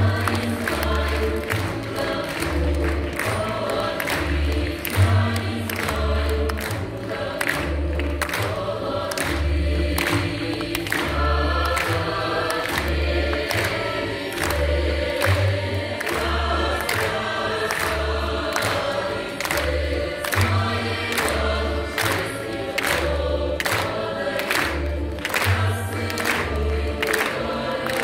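Music with a choir singing over a steady, pulsing bass beat, with sharp regular beats on top.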